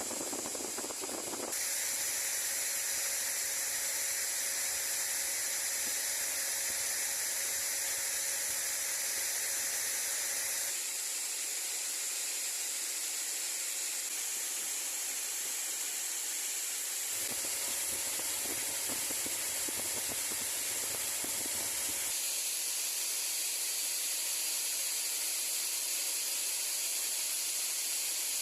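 Steady hissing noise with faint steady tones mixed in, its character changing abruptly several times.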